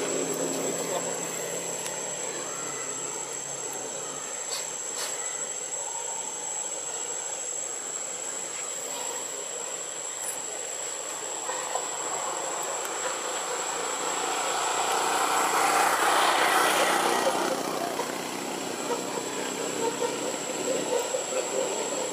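Continuous distant vehicle noise that swells to a peak about three quarters of the way in and then fades again, as of a vehicle passing, over a steady high-pitched whine.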